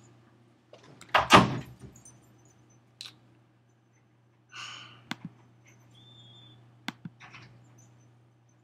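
A loud thump about a second in, then a few sharp clicks and short rustles over a faint steady low hum: handling noise at a computer desk, with mouse or keyboard clicks as the slideshow is closed.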